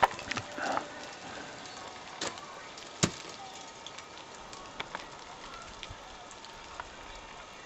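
A steady hiss broken by a handful of sharp clicks and knocks, the loudest about three seconds in.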